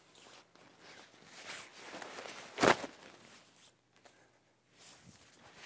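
Hub-style ground blind being popped open by hand: fabric rustling and footsteps as the side panels are pulled out, with one loud sharp pop about two and a half seconds in as a side hub snaps outward.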